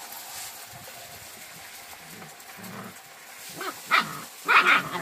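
German Shepherd puppies squabbling: faint low growls, then a few short yaps about three and a half seconds in and a louder, longer yelp near the end.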